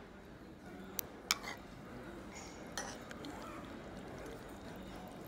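A metal spoon clinking against a ramen bowl while stirring and lifting noodles: two sharp clinks about a second in, the second the louder, and a softer one near the three-second mark, over steady room noise.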